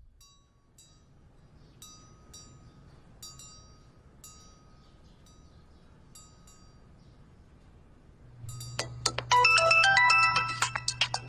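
Faint, sparse chime-like tinkles, then about nine seconds in a smartphone ringtone starts up loudly, a quick melody of bright notes over a steady low buzz, for an incoming call.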